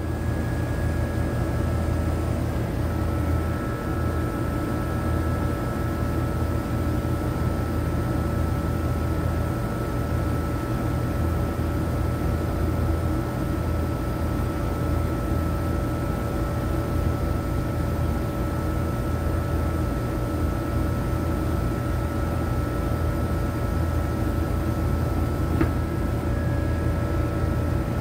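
Air-conditioner condensing unit with only its condenser fan motor running, a steady low hum and whir of fan and moving air. The compressor is not running: it draws no current, a no-cooling fault the technician suspects is a dead compressor.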